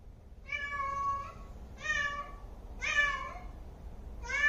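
Domestic cat meowing four times, about a second apart, the last call starting near the end. It is calling for its owners' attention, as it does before peeing or pooing.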